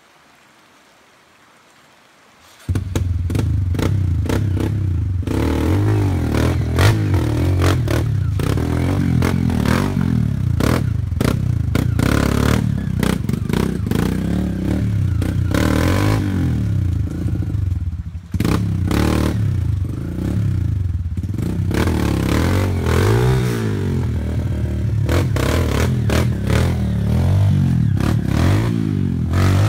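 Kawasaki KLX dirt bike's single-cylinder four-stroke engine revving up and down under load as it climbs a rocky trail, with stones clattering and scraping under the tyres. The engine comes in abruptly about three seconds in and dips briefly about eighteen seconds in.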